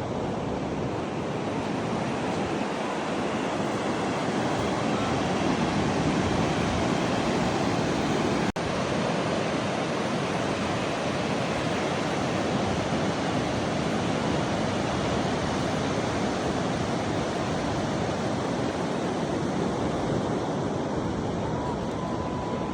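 Pacific Ocean surf washing steadily, mixed with wind noise, with a momentary dropout about eight and a half seconds in.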